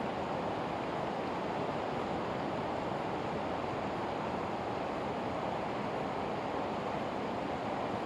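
Steady rush of a river's flowing current, an even noise with no distinct events.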